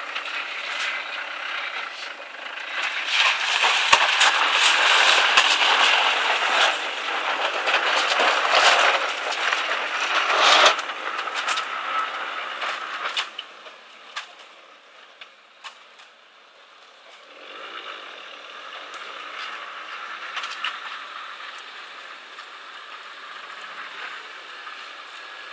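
Land Rover 90 pickup driving off-road through mud: engine under load and tyres churning, with many sharp crackles and snaps, loudest from about three to eleven seconds in as it goes past, then fading away. From about seventeen seconds in, a quieter, steadier sound of a second 4x4 working further off.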